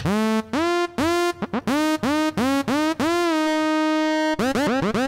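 A synth lead patch in Native Instruments Massive playing a run of short staccato notes, each scooping up into pitch. A longer held note comes about three seconds in, and a quick flurry of notes near the end.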